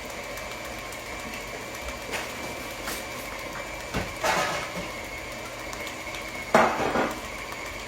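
Electric mixer running steadily, blending dry ingredients into pumpkin cake batter, with two louder bursts about four and six and a half seconds in.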